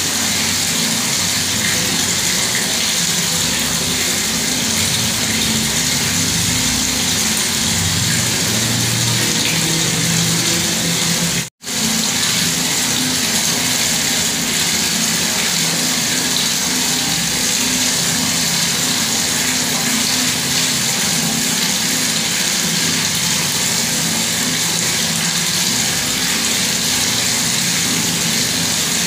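Bathroom water tap left running, a steady rush of pouring water that cuts out for a split second about a third of the way in.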